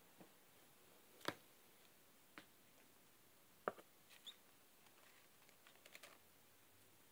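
Near silence broken by several faint, sharp clicks and taps, the two loudest about a second in and about halfway through, with a brief high squeak a little after the middle.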